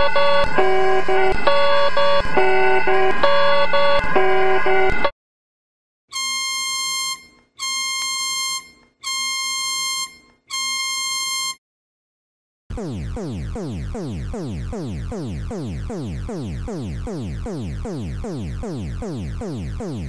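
Broadcast emergency alert tones in sequence. Antigua and Barbuda's alert is a loud repeating electronic pattern of stepped multi-note chords that cuts off about five seconds in. The Bahamas' alert follows: four long beeps, then a fast repeating falling sweep tone, about three sweeps a second.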